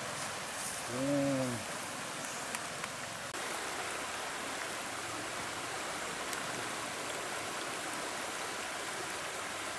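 Fast-flowing river water rushing steadily. A short vocal sound from a man is heard about a second in.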